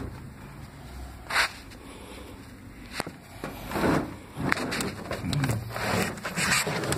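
Handling noise from a handheld phone: its microphone rubbing and scraping against clothing and skin as it is carried, with a sharp click about three seconds in.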